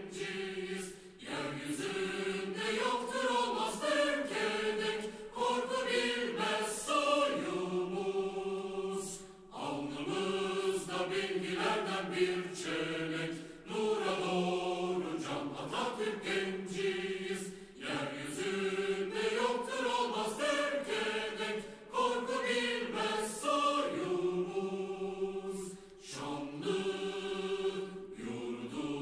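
A choir singing a slow song in phrases of about four seconds, with a short pause between phrases.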